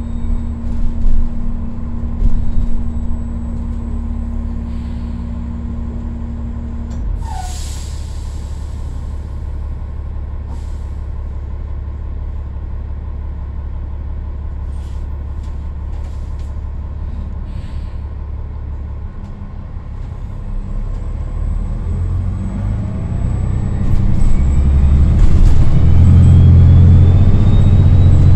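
Inside a New Flyer XDE40 diesel-electric hybrid bus (Cummins L9 engine, BAE HybriDrive): a steady low hum while it stands in traffic, a short hiss of air brakes about seven seconds in, then in the last few seconds the drive gets much louder with a rising electric whine as the bus pulls away.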